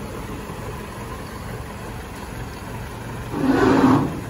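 Diesel engine of a Kubota L4508DI tractor running steadily at low revs, then revving up briefly and louder about three seconds in.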